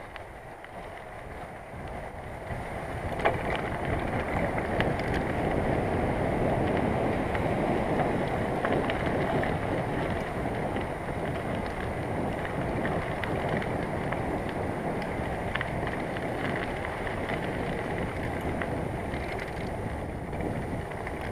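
Bicycle being ridden along a rough path: steady tyre rumble and rattling, with wind on the microphone. It grows louder about three seconds in, with one sharp knock.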